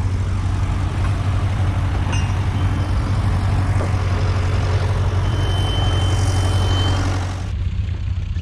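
Tractor engine running steadily with a low hum, a rushing noise over it that drops away about seven and a half seconds in.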